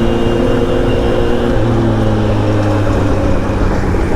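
Kawasaki Z900's inline-four engine running at fairly steady revs through an aftermarket Leo Vince exhaust while riding, over a rush of wind noise. The engine note shifts slightly about a second and a half in.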